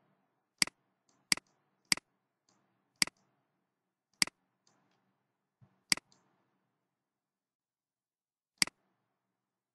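Computer mouse button clicking, seven sharp separate clicks at uneven intervals, each a quick press and release.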